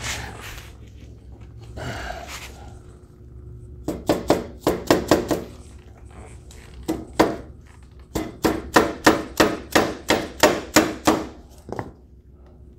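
Hammer blows on the metal A-arm and its mounting hardware, each strike with a short ring, as the arm is driven into its frame mounts. They come in runs of about three to four strikes a second: a quick burst about four seconds in, two single blows around seven seconds, and a longer series from about eight seconds.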